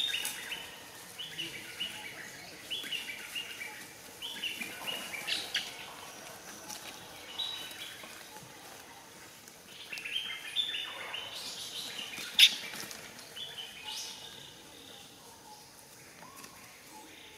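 Bursts of high-pitched chirping calls, repeated in clusters, with a single sharp click about twelve seconds in.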